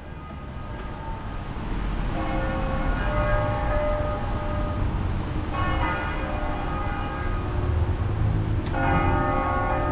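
Church bells ringing: fresh strokes come in about every three seconds and hang on, overlapping, over a low, steady rumble of street traffic.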